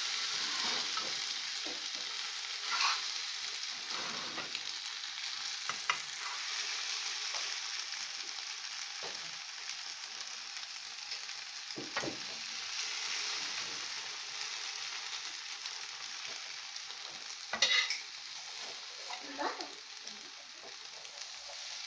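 Egg omelette with onion and tomato frying in oil in a pan: a steady sizzle that slowly fades, with occasional scrapes and taps of a spatula against the pan, the loudest about three-quarters of the way through.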